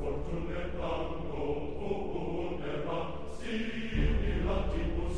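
Many voices chanting and singing together over a constant noisy din, like a packed football stadium crowd; it swells louder about four seconds in.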